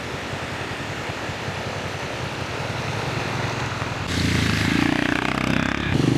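Motorcycle engine of a sidecar tricycle running as it rides along, getting louder about four seconds in.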